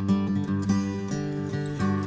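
Background music led by a strummed acoustic guitar, its chords changing about every half second.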